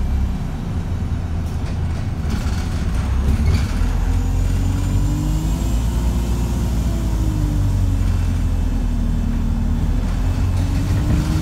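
ADL Enviro350H hybrid bus heard from inside while it drives: its engine runs with a steady drone whose pitch rises about five seconds in, eases back, then climbs again near the end. The engine is thrashing and sounds unhealthy. A few rattles and knocks come through between about one and four seconds in.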